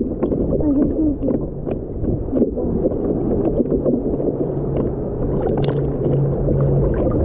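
Seawater sloshing and washing over the nose of a surfboard against a board-mounted action camera, a dull continuous churn with frequent small splashes. A low steady hum joins about halfway through.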